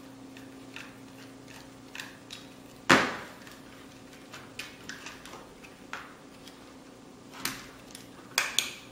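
Light clicks and taps of a screwdriver working on the hard plastic parts of a toy RC car, with a louder clack about three seconds in and a few more near the end.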